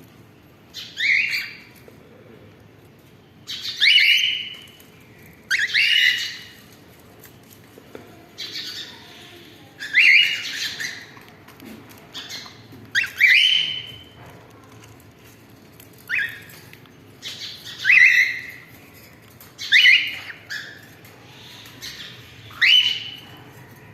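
Cockatiels calling: about ten short, loud calls, roughly one every two seconds, some coming in quick pairs.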